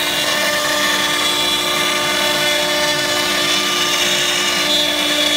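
CNC router spindle and its dust-collection suction running steadily while milling a wooden workbench top: a steady whine with several pitched tones over a constant rushing hiss.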